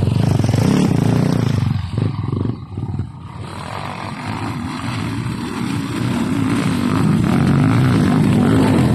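Dirt bike engine revving hard close by as it climbs the slope, dropping away about two to three seconds in, then another dirt bike's engine growing steadily louder as it rides up the hill.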